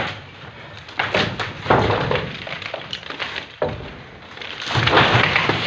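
Wooden shuttering planks knocking and clattering as formwork is stripped: several sharp knocks, then a longer rough clatter near the end.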